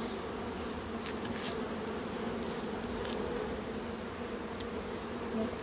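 Honeybees buzzing in numbers around a hive entrance: a steady low hum with a higher overtone.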